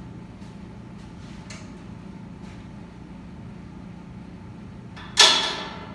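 A single sharp metal clank with a short ringing decay about five seconds in, from the adjustable pulley carriage on a Cybex FT325 cable column being lowered and locked into place. A few faint ticks come before it.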